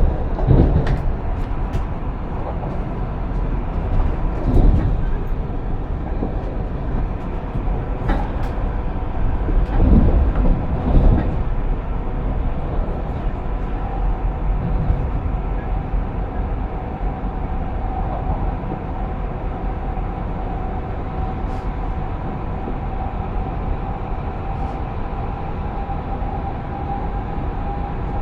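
ED250 Pendolino electric train running along the line, heard from inside: a steady rumble of wheels on rail with a few knocks in the first dozen seconds, and a steady whine from about halfway on.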